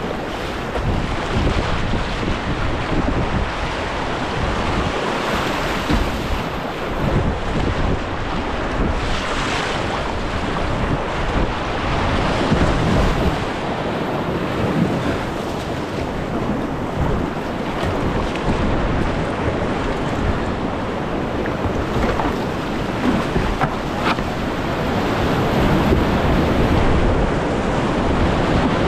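Rushing whitewater of a steep creek, heard from a kayak running the rapids: a steady, loud rush of water with wind buffeting the microphone.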